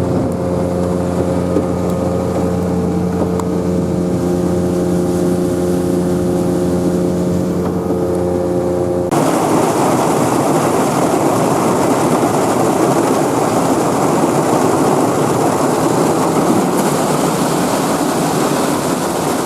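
Boat motor running steadily. About halfway through, the sound switches abruptly to a louder, even rush of wind and water.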